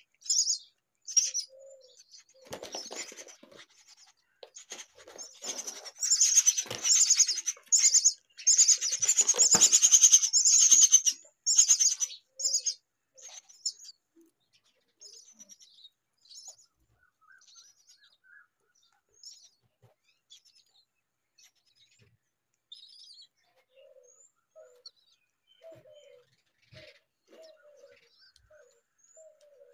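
Myna chicks calling, with loud, rapid, high-pitched calls in bursts for about the first twelve seconds, then fainter scattered chirps. Near the end comes a series of short low notes about once a second.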